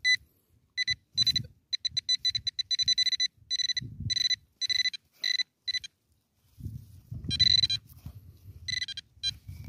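Handheld metal-detector pinpointer beeping in the dig hole as it picks up metal: short beeps of one high pitch, in a fast run of pulses, then slower separate beeps, a longer unbroken tone about seven and a half seconds in, and a few more beeps near the end. Soft rustling of soil and roots being disturbed underneath.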